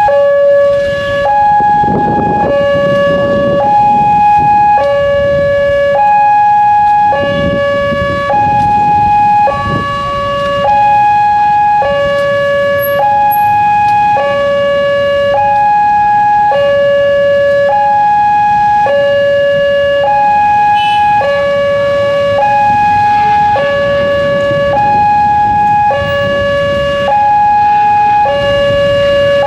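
Railway level-crossing warning siren sounding a two-tone alternation, a low tone of about 560 Hz and a high tone of about 840 Hz, each held for about a second: the crossing warning that a train is approaching.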